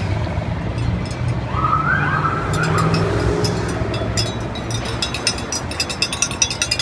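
Police escort vehicles driving past with a steady low engine rumble, and a police siren giving a short warbling burst about one and a half seconds in. Scattered sharp clicks in the second half.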